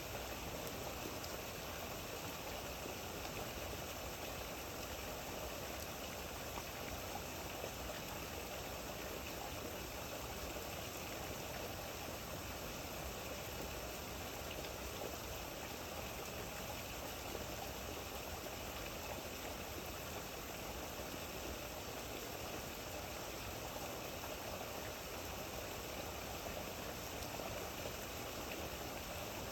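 Steady rain falling, an even, unbroken hiss with no separate drops or other sounds standing out.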